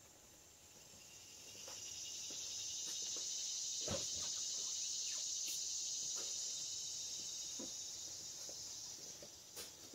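High, steady insect buzzing that swells in over the first couple of seconds and fades away near the end, with a few faint knocks, the clearest about four seconds in.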